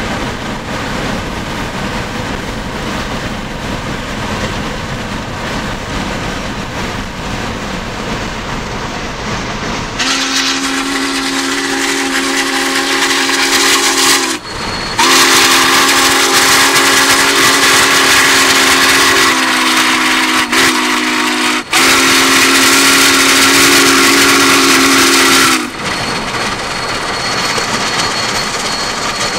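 Steady rushing noise of travel at speed. About ten seconds in, the steam whistle of Union Pacific 844, a 4-8-4 steam locomotive, is blown: a loud chord held in three long blasts with two brief breaks, about fifteen seconds in all.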